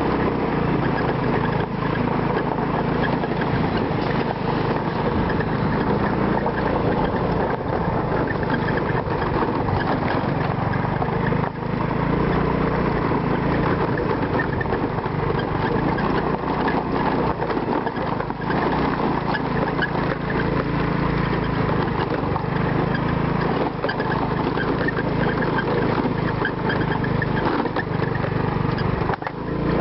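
An engine running steadily: a constant low hum under broad mechanical noise, with no change in speed.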